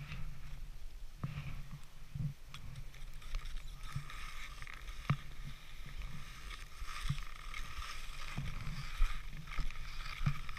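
Edges scraping and hissing over packed snow on a downhill ski run, with wind rumbling on the microphone and scattered sharp clicks.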